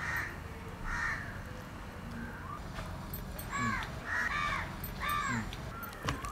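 Crows cawing: about five short harsh caws, two early on and a run of three in the second half, over a low steady background.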